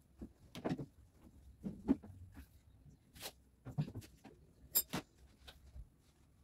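A few scattered knocks, taps and clicks of household objects being handled and set down, about six in all at uneven intervals. The sharpest pair comes a little past the middle.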